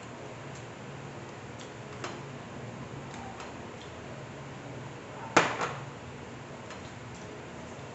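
Eating at a table: a few small clicks of hands and dishes over a low steady hum, with one sharp clatter about five seconds in, a plate set down on the tabletop, and a smaller knock just after.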